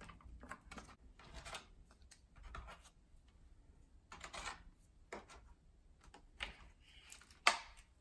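Scattered light clicks and scrapes of the Dyson V7 Motorhead's plastic cleaner head being handled and picked clean, with one sharper knock near the end.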